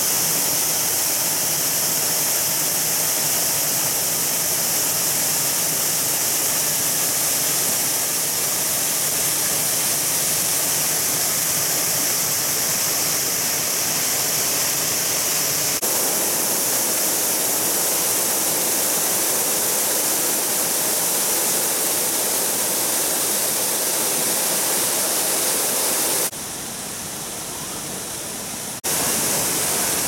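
Waterfall cascading over boulders into a pool: a steady rush of falling water. Near the end it drops to a quieter rush for a couple of seconds, then comes back at full strength.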